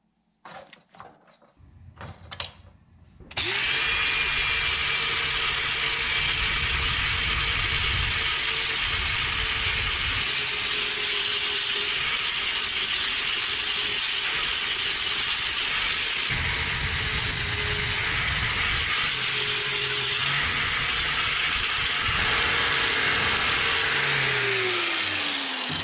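A few faint knocks, then an angle grinder starts about three seconds in and runs at a steady whine while its disc grinds the steel of an antique adjustable wrench. Near the end it is switched off and its whine falls as it winds down.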